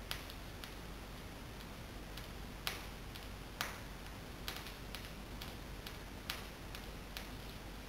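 Small electric arc snapping as a sewing-pin electrode on a 24 V DC supply touches thin aluminum foil: about seven sharp, faint clicks at irregular intervals over a low hum. The foil here is oxidized, and the arc does not weld it.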